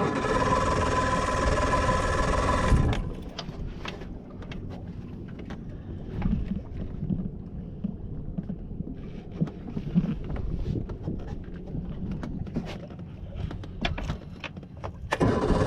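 Boat on the water: a steady motor-and-wind noise that drops away about three seconds in, leaving quieter knocks and low thumps, then comes back near the end.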